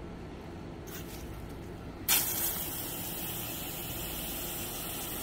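Pistol-grip spray nozzle on an expandable garden hose opened about two seconds in: water starts spraying with a sudden loud onset, then a steady hiss. A faint click comes about a second in.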